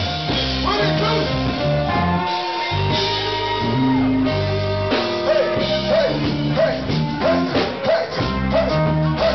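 Live band playing: electric guitars and bass guitar, with voices singing. Over the second half a short bending phrase repeats about twice a second.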